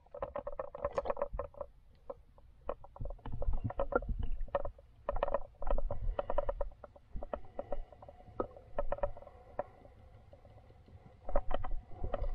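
Muffled underwater sound of river water moving around an action camera held below the surface: frequent irregular clicks and knocks over low rumbling surges, with a louder surge near the end.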